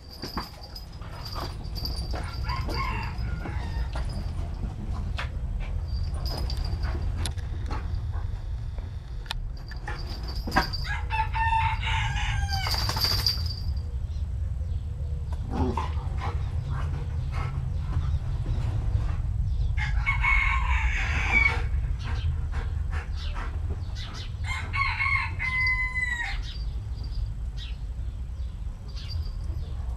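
A rooster crowing three times, each call a second or two long, the last one falling away at its end. Underneath runs a steady low rumble with scattered short clicks and scuffs.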